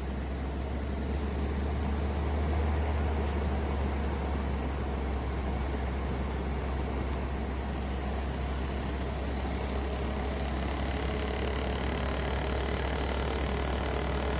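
Window air conditioner running: a steady low hum with fan noise, swelling slightly over the first couple of seconds and then holding steady.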